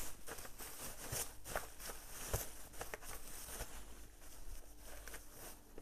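Bubble wrap and plastic packing rustling and crinkling as hands unwrap a laptop motherboard, with scattered light clicks and taps, the sharpest a little over two seconds in.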